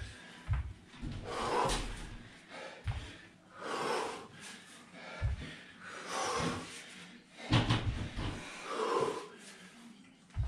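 A man breathing hard through a set of lunges, with a forceful exhale about every two seconds as he pushes back up. Dull thuds of bare feet landing on the floor fall between the breaths.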